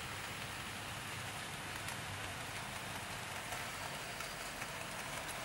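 Faint, steady rattle of a 00 gauge model goods train, its wheels and wagons rolling along the track.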